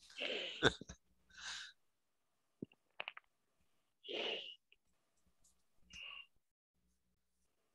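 Soft breathy exhalations into a headset microphone, cut off sharply between each one, with a short cluster of computer clicks about three seconds in.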